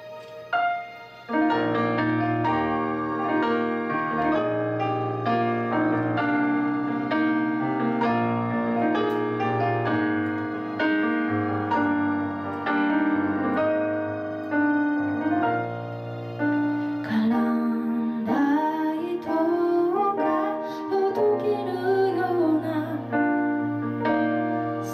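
Piano playing a gentle introduction of steady, repeated chords. About two-thirds of the way in, a woman's voice begins singing the song's melody over it.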